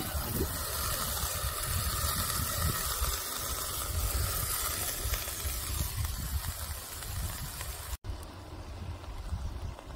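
A beef roast sizzling steadily as it sears in a hot cast-iron pot on a rocket stove, over a low rumble. About eight seconds in the sizzle cuts off abruptly and comes back fainter.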